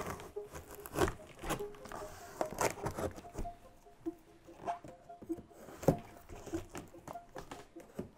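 Knife slitting the packing tape along a cardboard box's seam: irregular scrapes, taps and rustles of the blade, hand and cardboard, with a few sharper knocks against the box.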